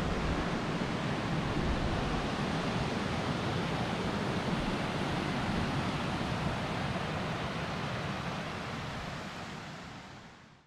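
Steady rush of white water from a cascading mountain creek, fading out near the end.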